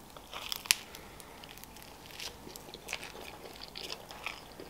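A bite into a slice of Caesar pizza with lettuce, then chewing: quiet, scattered crunches and clicks, the sharpest just under a second in.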